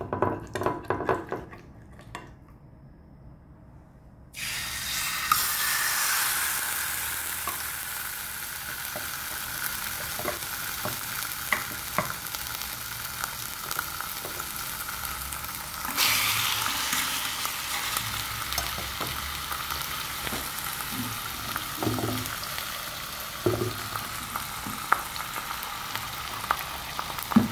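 Marinated chicken breast frying in hot olive oil in a stainless-steel pan. A few clinks and a short lull come first. The sizzle starts suddenly about four seconds in as the chicken meets the oil, and it jumps louder about sixteen seconds in as a second piece goes in, with scattered small pops throughout.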